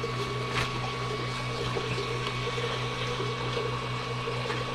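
Steady electrical hum and fan noise with a faint constant whine, as from a powered-on 3D printer's cooling fans running at idle. A faint click comes about half a second in.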